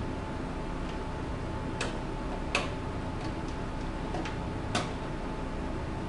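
Small sharp clicks of screws and a screwdriver being worked into a computer case, scattered and irregular, with three louder ones, over a steady low hum.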